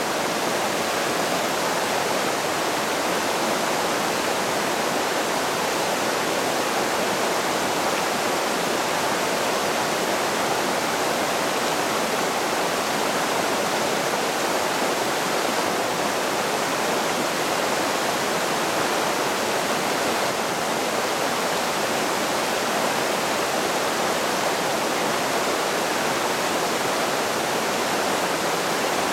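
Mountain creek rushing over boulders and small rapids: a steady, unbroken rush of water.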